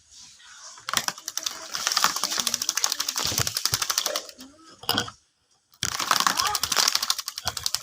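Javan myna chattering: two long runs of rapid rasping clicks mixed with bending, voice-like notes, the second starting about six seconds in.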